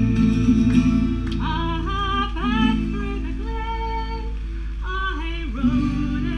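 Live folk music: acoustic guitar, with long sliding sung notes coming in from about a second and a half in over a steady low drone.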